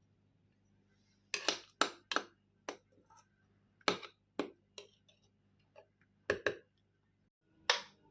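About a dozen sharp knocks and clinks of kitchen utensils and dishes, irregularly spaced, starting about a second and a half in.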